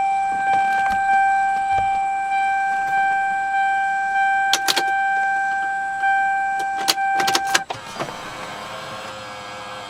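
A steady electronic warning tone with a few sharp clicks cuts off about seven and a half seconds in, followed by the Lexus SC300's auto-tilt steering column motor whirring smoothly for about two and a half seconds, its pitch sagging as it stops. There is no grinding: the column's worm gear has been re-shimmed with washers.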